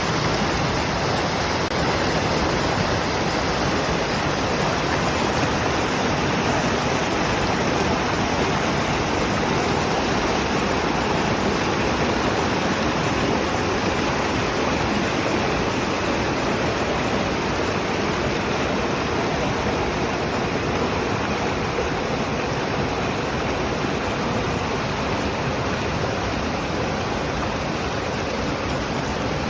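Running water, a steady, unbroken rush.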